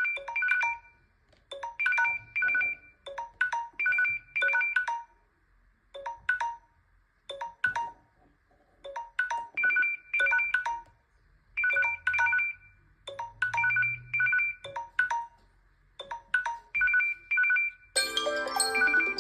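Smartphone ringtone or alert tone: phrases of quick, high electronic beeps on a few pitches, repeating with short pauses between them. Near the end a different, fuller melodic chime tone takes over.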